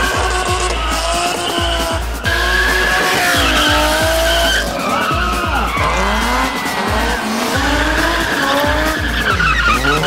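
Drift car's engine revving hard up and down, with tyres squealing as it slides. A heavy-beat music track runs underneath.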